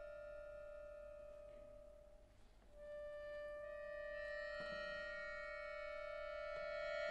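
Solo accordion holding a quiet, sustained reedy note. It fades almost to nothing about two seconds in, then the note comes back and slowly swells, with more high tones joining.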